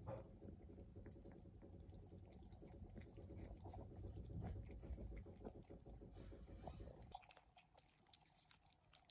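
Two cats lapping water from a bowl, a fast run of soft wet clicks from their tongues. The lapping stops about seven seconds in.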